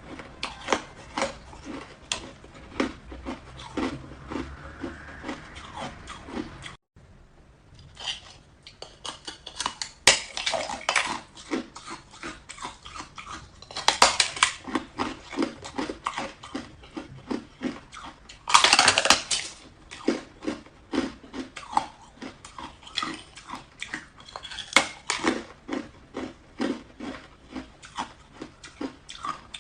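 Hard ice being bitten and chewed right at the microphone: a steady run of sharp crunches and crackles. A few harder bites stand out, the loudest a long crackling crunch at about 19 seconds, and the sound drops out briefly about 7 seconds in.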